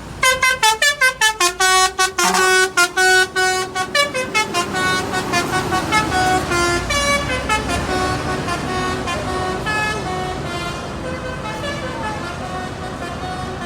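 Bus telolet horn (a multi-tone 'basuri' air horn) playing a tune. It opens with a rapid run of short toots, about six a second, then moves into held, changing notes that slowly fade.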